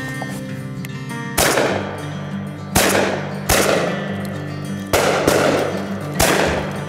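Five shotgun shots fired in quick, uneven succession, each sharp crack trailing off in an echo, over background music.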